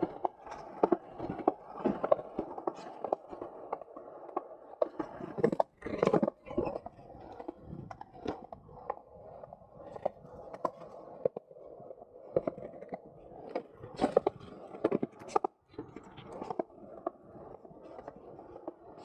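Skateboard wheels rolling and grinding over a park surface, with frequent sharp clacks and knocks from the boards hitting and scraping, a few louder ones about six seconds in and again near fourteen to fifteen seconds.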